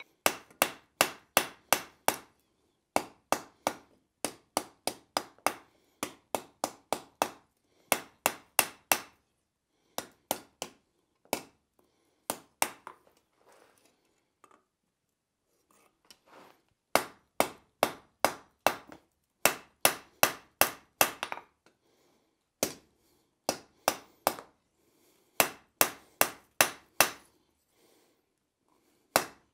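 Hand hammer striking a red-hot steel bar on an anvil, a blacksmith forging the bar: runs of sharp blows about four a second, with short pauses between runs and a longer pause about halfway through.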